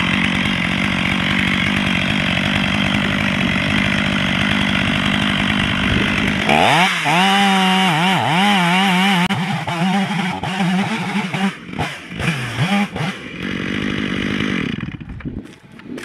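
Two-stroke chainsaw cutting the scarf into a tree trunk, held at a steady full-throttle note under load for about six seconds. The revs then climb and waver as the cut goes on, blip on and off several times, and fall away near the end, followed by a few knocks.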